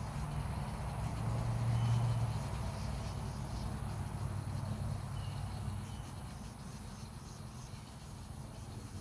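Outdoor ambience: a low rumble that swells about two seconds in and fades away by about six seconds, over a steady high-pitched insect drone, with a few faint short chirps.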